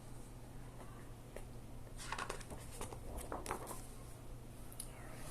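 Soft paper rustles and light taps from a hardcover earbook being handled and its pages turned, in a cluster about two seconds in and a few more near the end, over a low steady room hum.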